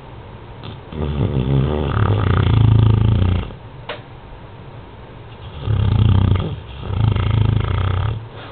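Beagle snoring in its sleep: two long snoring breaths, one starting about a second in and the next about four seconds later, each in two parts.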